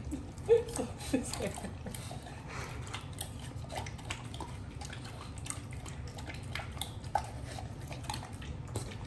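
Rottweiler puppy licking and chewing a wedge of watermelon: a run of wet smacking and lapping clicks. The loudest sound is a brief pitched one about half a second in.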